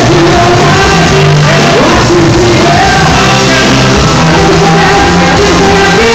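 Live rock band playing loud with a lead singer, the melody sliding over sustained bass notes, recorded close to full level on a mobile phone.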